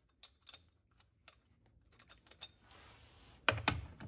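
A few light metallic clicks as fingers handle a car wheel's lug nuts. Then, about three and a half seconds in, a sudden louder clatter as a 20V cordless impact wrench is put to a lug nut and starts up.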